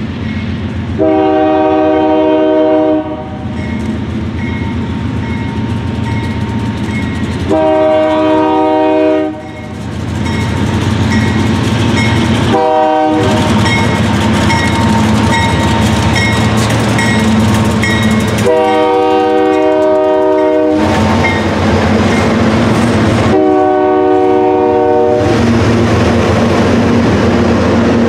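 Diesel freight locomotive's multi-note air horn sounding a series of long blasts with one short one in the middle, the grade-crossing warning, while a bell dings about twice a second. Under it the locomotive engines rumble past, followed by freight cars clattering over the rail joints.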